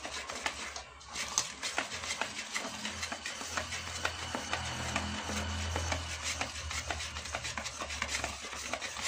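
Cupcake batter being stirred by hand in a stainless steel bowl: quick, continuous scraping and rubbing strokes of the utensil against the bowl, with a brief pause about a second in. A faint steady low hum runs underneath.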